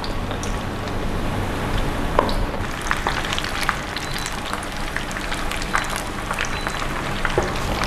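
Battered chicken pieces deep-frying in hot oil in a pan: a steady sizzle with many scattered crackles and pops.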